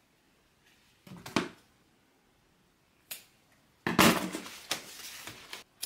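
Handling noise from vinyl and canvas bag pieces and supplies on a work table: a couple of short rustles about a second in, a click near three seconds, then a louder scraping rustle lasting nearly two seconds that stops suddenly.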